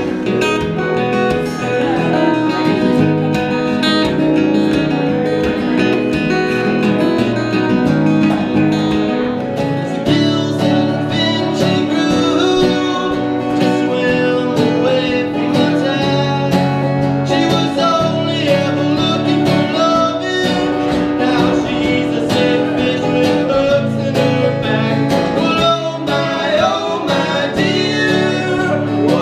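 Live acoustic guitar music: two acoustic guitars playing together. About ten seconds in, it cuts to a different song, acoustic guitar with a man singing.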